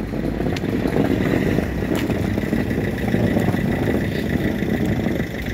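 A motor vehicle's engine running steadily close by, with a faint steady whine from about a second in.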